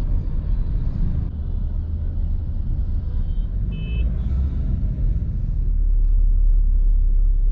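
Low, steady rumble of road and engine noise heard from inside a moving car. The sound changes abruptly about a second in and again past the middle, and a few short high-pitched tones sound near the middle.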